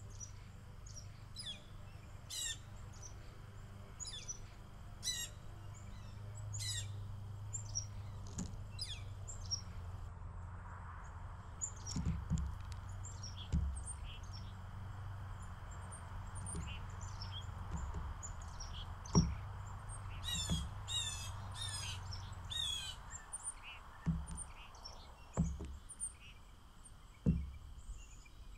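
Blue jays and chickadees at a feeder, calling and chirping with many short high notes throughout and a quick run of four harsher calls about twenty seconds in. A few soft low thumps are scattered among the calls.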